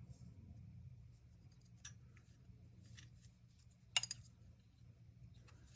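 A few faint clicks and taps of small metal carburetor parts and hand tools being handled, the sharpest about four seconds in, over a low steady hum.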